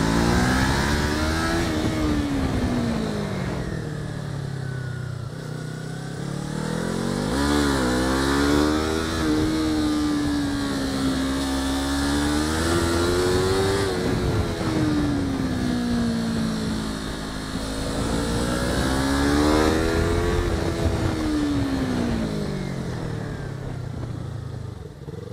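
First-generation Yamaha R3's 321 cc parallel-twin engine heard from on the bike, its revs climbing and falling several times as it accelerates out of corners and eases off into the next ones.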